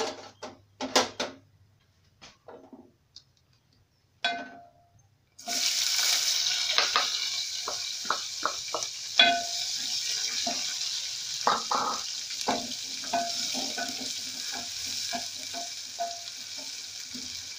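Sliced red onions dropped into hot cooking oil in an aluminium pot: a loud sizzle starts suddenly about five seconds in and carries on steadily, with a wooden spoon knocking and scraping against the pot as the onions are stirred. Before the sizzle, a few clicks and knocks of handling.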